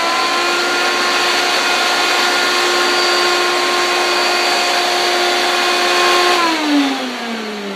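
Hoover Concept-series vacuum cleaner motor running at a steady high whine, then switched off about six seconds in, its pitch falling as the motor spins down.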